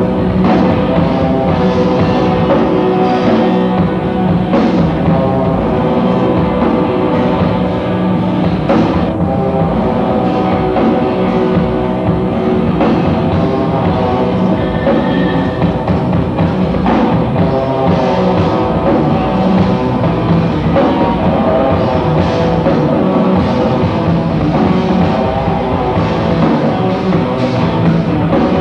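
Rock band playing live and loud: electric guitar over a drum kit, dense and continuous, taped from among the crowd.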